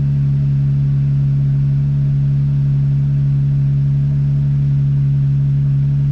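Jeep Wrangler JL's 3.6-litre Pentastar V6 idling with a steady, unchanging hum, run briefly just after an oil change to circulate the fresh oil before the level is rechecked.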